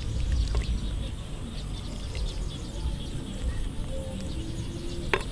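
Outdoor ambience with a steady low rumble and faint bird chirps, and a single sharp clink near the end as a metal ladle serves soup from a clay pot into a bowl.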